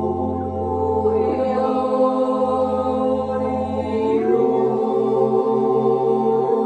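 A group of beginner yodel singers singing a yodel a cappella in several-part harmony, holding long chords that shift every second or two.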